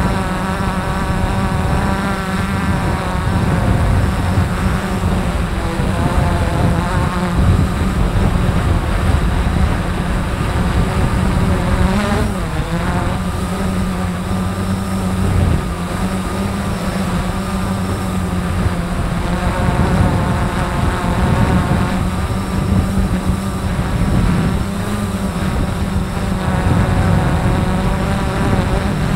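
Multirotor drone's electric motors and propellers buzzing steadily, heard from the camera on the craft, with the pitch swinging briefly about twelve seconds in.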